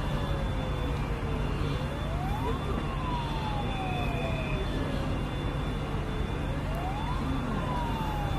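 Emergency vehicle siren wailing in a slow cycle, twice: each time the pitch climbs quickly, then falls off slowly over several seconds. A steady low hum runs underneath.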